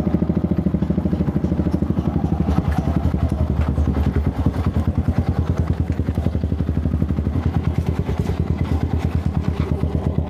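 Small motorcycle engine running at low speed and idling, with a steady, fast, even pulse.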